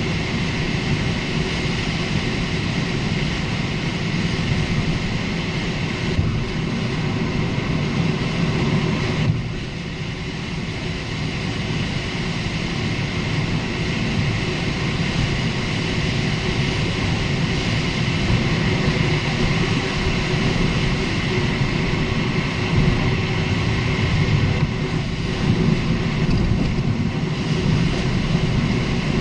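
Steady road and tyre noise while a Lexus IS250 (GSE20) is driven, with a few brief knocks and rattles from the suspension over bumps. The owner suspects the stabilizer links, with the coilovers or upper arms also possible, since the ball joints and bushings have already been replaced.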